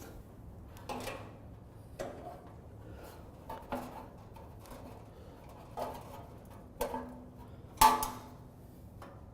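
Phillips screwdriver tightening bolts on a steel barbecue's side burner shelf: a series of about seven separate metallic clicks and knocks, some ringing briefly, the loudest clank near the end.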